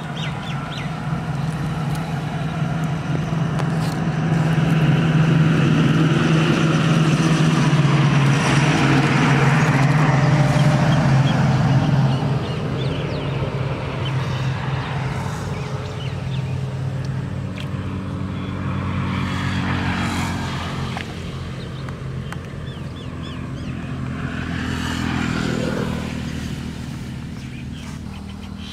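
Motor vehicles passing on the nearby road: a steady engine note swells to its loudest about a third of the way through, then fades, and a second, quieter vehicle swells and fades near the end.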